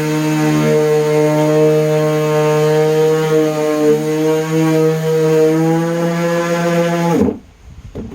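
DeWalt palm orbital sander with a 3M Xtract Cubitron II disc running steadily, sanding a cedar carving. About seven seconds in it is switched off and winds down quickly, followed by a few light knocks.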